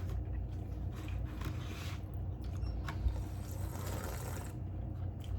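Close-up eating sounds: chewing and small mouth noises in uneven spells, over a steady low hum.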